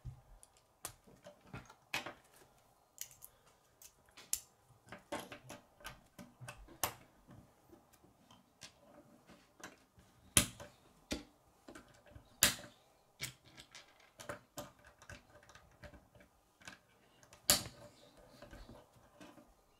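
Plastic K'nex construction pieces clicking and snapping as they are fitted together by hand, with light knocks of parts on a wooden tabletop. The clicks come irregularly, with three sharper snaps: about halfway through, a couple of seconds later, and near the end.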